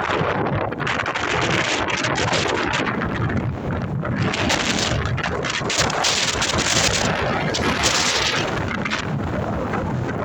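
Wind buffeting the microphone: a loud, continuous rushing noise that swells in gusts, strongest about four to eight seconds in.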